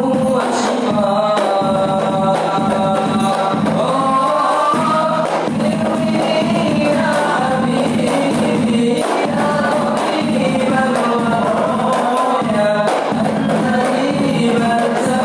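A group of voices singing together in unison to rebana frame drums.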